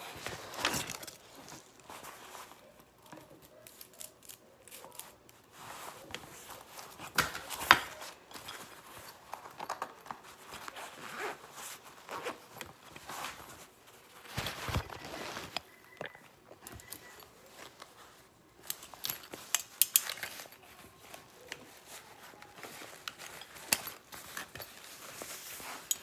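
Irregular rustling, clicks and knocks of hands working at a bike, pulling a plastic zip tie and handling a fabric bag, with one sharp knock about eight seconds in.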